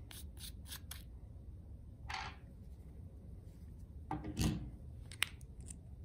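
Faint handling sounds of a small flashlight and its 16340 lithium-ion battery as a protective film is peeled off the battery: light ticks, a short scratchy rustle about two seconds in, a brief rub a couple of seconds later and a sharp click just after five seconds.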